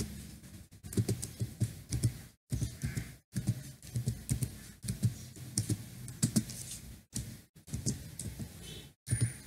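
Typing on a computer keyboard: a run of irregular key clicks with short pauses between bursts.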